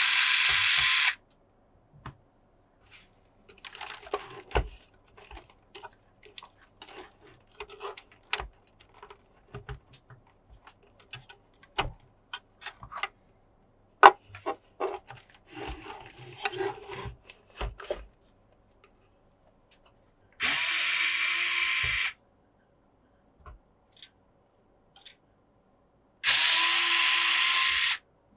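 Small electric screwdriver running three times in steady bursts of about a second and a half, driving or backing out screws during a PC cooler swap. Between the runs come scattered small clicks and clatter of parts and screws being handled.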